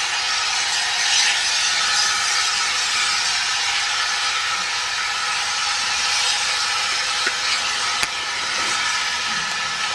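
Steam locomotive moving off with a steady, loud hiss of escaping steam, and a single sharp click about eight seconds in.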